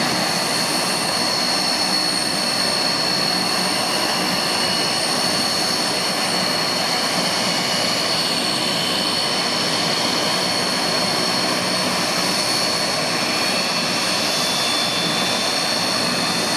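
Antonov An-12's four Ivchenko AI-20 turboprop engines running with propellers turning, a steady turbine whine with a high-pitched tone over the propeller noise.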